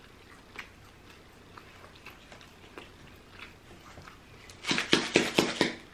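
Faint scattered ticks, then about four and a half seconds in a run of quick, loud rattling shakes of a lemon pepper seasoning shaker, about six shakes a second.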